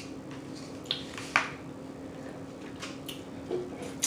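Mouth smacking and wet clicks of someone chewing food, a few short smacks with the loudest about a second in, over a steady low hum.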